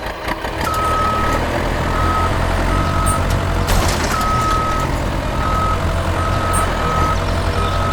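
A vehicle engine runs with a steady low rumble, over a high electronic beep that sounds about eight times in uneven short and longer pulses, like a reversing alarm.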